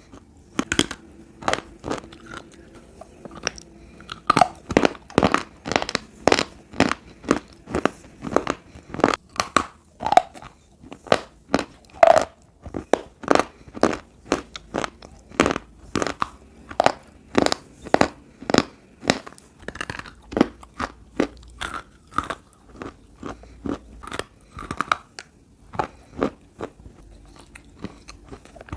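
Close-up chewing of wetted baked edible clay: sharp crunches as the pieces are bitten and ground between the teeth, about one to two a second in a steady run.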